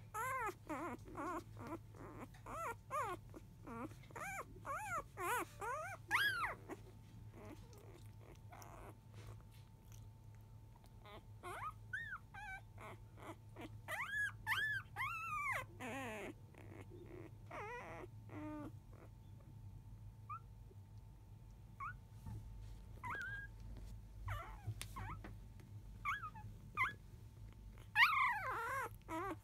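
Five-day-old Labrador retriever puppies squeaking and whimpering: a flurry of short, high-pitched, rising-and-falling squeals in the first six seconds, more around the middle, only an occasional squeak in between, and a louder burst near the end.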